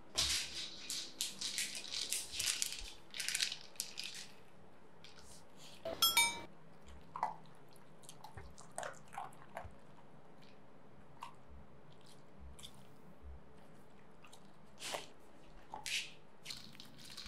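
Golden retriever nosing and chewing at a plastic wobble treat-dispenser toy: quick crunching and licking clicks through the first few seconds, a sharp clatter as the toy is knocked about six seconds in, then scattered lighter clicks.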